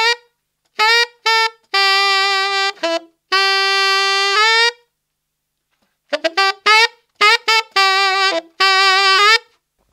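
Tenor saxophone playing a blues lick in F-sharp minor slowly and unaccompanied: two phrases of short notes running into long held ones, each ending on a note that bends upward, with a pause of over a second between them.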